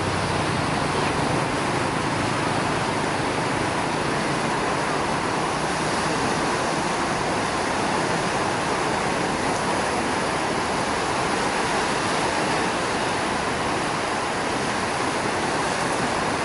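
Sea waves washing onto a rocky shore: a steady, even rush of surf.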